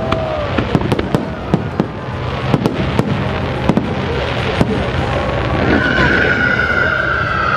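Fireworks display: aerial shells bursting in a rapid, irregular run of bangs and crackles. A steady high whistle-like tone joins in near the end.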